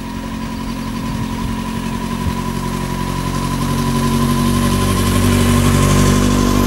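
Motorcycle-and-sidecar engine running steadily at low speed as it comes up and passes close by, growing louder toward the end.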